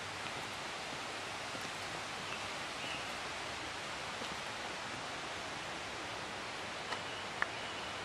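Steady, even outdoor hiss of open-air ambience, with two short clicks near the end.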